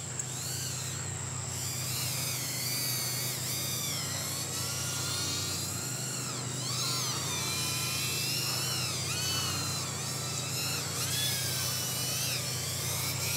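Happymodel Mobula8 micro FPV quadcopter's 1103 11000 kV brushless motors whining in flight, the pitch rising and falling again and again with throttle changes, over a steady low hum.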